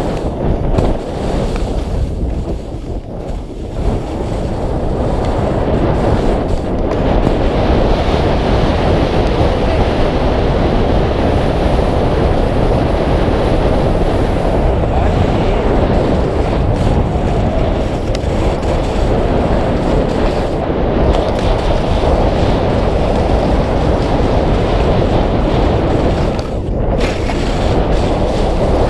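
Steady rushing wind noise on a point-of-view camera's microphone, mixed with the scraping rumble of a rider sliding downhill over packed, tracked snow. It dips briefly about three seconds in.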